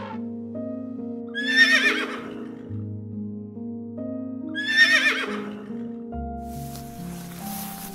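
A horse whinnying twice, each call a quavering, falling whinny, about three seconds apart, over background music. About six seconds in, a rustling noise starts.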